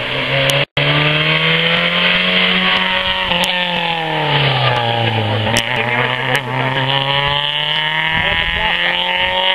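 Small rally hatchback's petrol engine revving hard as the car approaches and passes close by. The pitch dips as it goes past and then climbs again as it accelerates away. A brief gap in the sound comes just under a second in.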